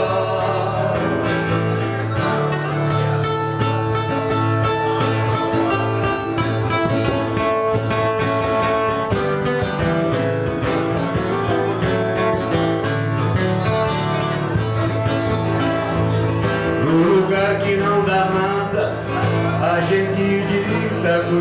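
Two violas caipira strumming and picking an instrumental break between verses of a sertanejo raiz moda, with a melody line of held notes over the chords.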